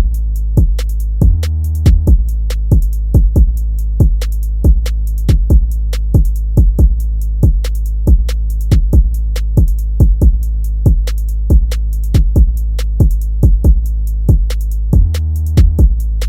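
Hip-hop style instrumental beat: a drum machine with sharp, regular hits over a steady deep bass line.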